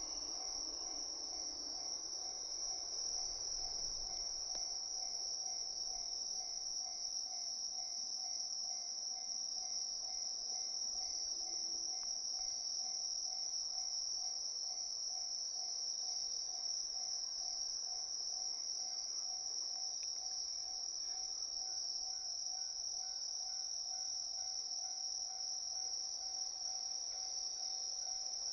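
A dense chorus of night insects such as crickets, a steady high-pitched trill, with a fainter, lower steady tone underneath.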